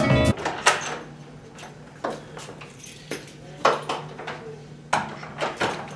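Backing music cuts off at the start. Then scattered knocks and clinks of lab containers and a plastic tub being handled, over a steady low hum.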